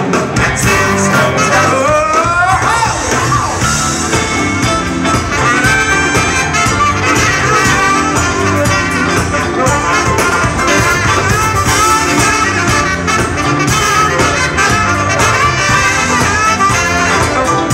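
Live funk and soul band playing: a horn section of saxophones and brass over electric guitar, bass, keyboards, drum kit and congas, with a quick rising run about two seconds in.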